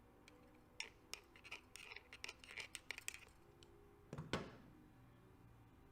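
Faint clicks and scraping of small metal engine parts, the cam chain adjuster's spring and plunger, being handled and oiled, with one sharper, louder knock about four seconds in.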